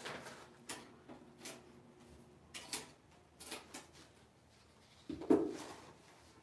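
Handling noises from a small aluminium-framed whiteboard: a few short knocks and rustles, then a louder knock about five seconds in as a sponge eraser comes down on the board and starts wiping it.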